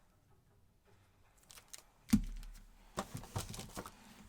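Hands handling trading-card boxes and packaging on a table: a sharp thump about two seconds in as a box is set down, then light clicks and rustling as the next box is picked up and opened.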